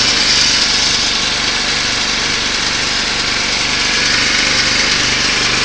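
Cast-iron air compressor driven by a 1.5 hp Craftsman electric motor, running steadily as it pumps up its tank toward a cut-off around 125 psi.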